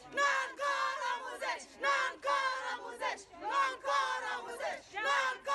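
A group of women chanting a protest slogan in unison, in short, loud, rhythmic shouted phrases.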